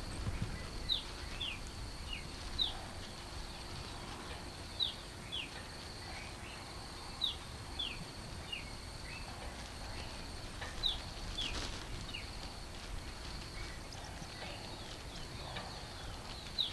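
Wild birds calling: short falling whistles, often in pairs, repeating every second or two, over a steady high-pitched buzz and a low rumble.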